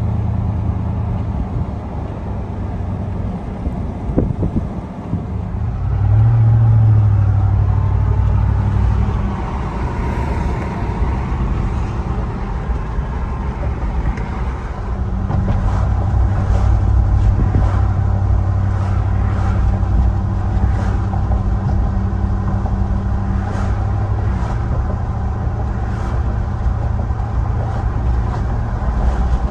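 Vehicle engine and road noise heard from inside the cab while driving, with a louder stretch about six seconds in and faint clicks roughly once a second in the second half.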